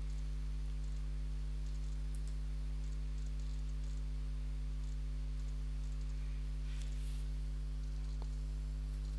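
Steady low electrical hum on the recording, with a few faint, scattered computer mouse clicks.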